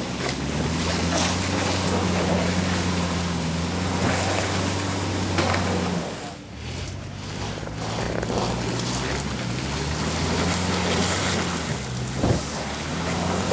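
A 4WD's engine running under load as it crawls through deep mud, with the hiss of the tyres and mud underneath. The revs hold steady, drop away briefly about six seconds in, then pick up again.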